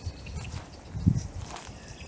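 Footsteps on grassy, leaf-strewn ground, heard as low thuds through a body-worn camera, the loudest about a second in. Birds chirp faintly.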